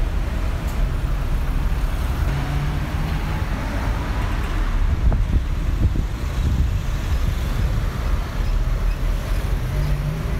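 City street traffic: cars running and passing close by, a steady low rumble of engines and tyres.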